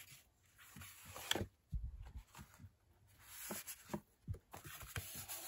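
Sheets of paper being pressed down and smoothed by hand on a wooden tabletop as a freshly glued paper square is fixed in place: intermittent rustling and rubbing with a few light taps and a soft thump about two seconds in.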